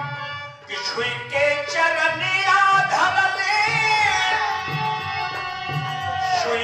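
Male voice singing a birha folk song over a steady hand-drum beat, with a brief break about half a second in and a long, wavering held note in the second half.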